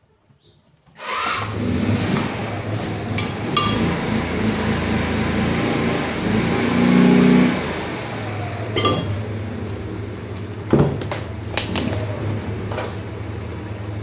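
A motor starts up about a second in and runs with a steady low hum, while a metal spoon clinks a few times against a plastic container.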